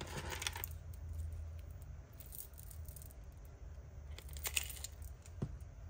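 Glue bottles being closed up by hand: light plastic clicks and handling rattles. About four seconds in comes a short jingle as a metal cap pin hung with bead charms is pushed into a fine-tip glue bottle's nozzle.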